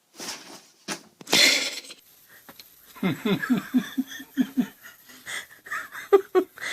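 A person laughing: a few breathy bursts, then a run of rapid rhythmic "ha" pulses about halfway through, trailing off into broken laughs near the end.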